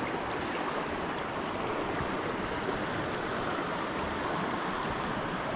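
Fast-flowing creek running high after heavy rain: a steady rush of water.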